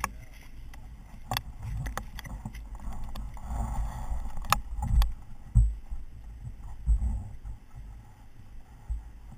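Handling noise from a camera being fitted onto a dirt bike's handlebar mount: sharp clicks and knocks of the mount with low thumps and rumble against the microphone.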